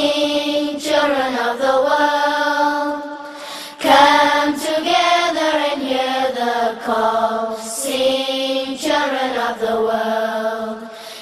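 Chant-like sung vocal music: voices holding long, gliding notes in several phrases, with fresh phrases starting at about four and nine seconds in.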